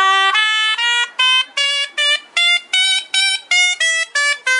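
Suona (Chinese shawm) playing a run of short, separate notes that climb step by step and then step back down, like a scale.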